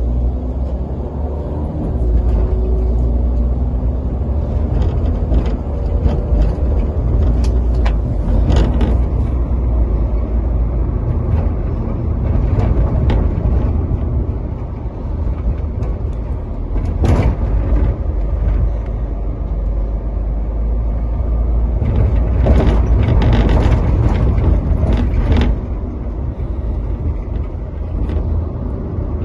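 Steady low wind rumble on the microphone with engine and road noise from riding along on a three-wheeled roadster, broken by a few short sharp knocks, one about 17 seconds in and a cluster between about 22 and 25 seconds.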